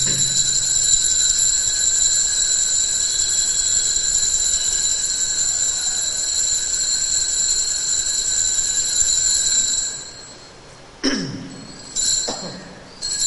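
Consecration bell rung without a break at the elevation of the host, a steady high-pitched ringing that stops about ten seconds in. Three short rings follow, about a second apart.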